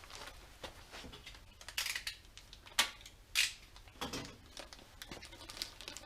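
Light, scattered clicks and knocks of small engine parts and hand tools being handled and fitted, with two sharper knocks near the middle.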